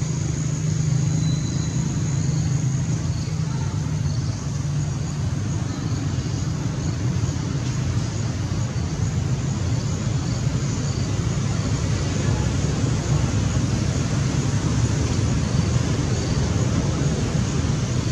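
Steady low rumble of motor traffic, with a steady high-pitched hiss above it.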